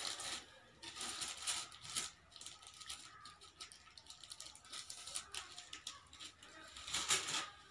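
Chopsticks and sellotape being handled: a scatter of soft clicks and rustles, with a louder rustle near the end.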